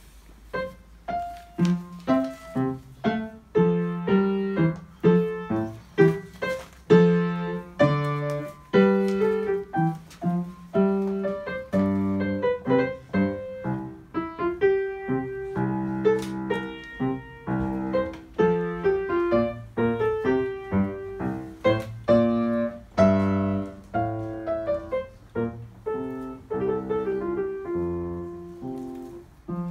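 Upright piano played solo by a child: a continuous stream of struck notes and chords, each ringing and fading.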